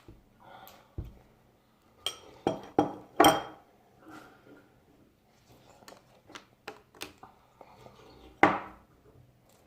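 Dishes and utensils clinking and knocking, in a cluster of loud knocks about two seconds in, lighter ticks after, and one more loud knock near the end.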